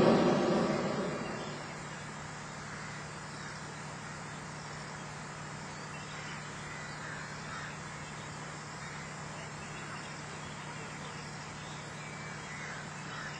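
A hot air balloon's propane burner roar dies away over the first second or two. Then a quiet stretch follows, with a steady low hum and a few faint, short chirps.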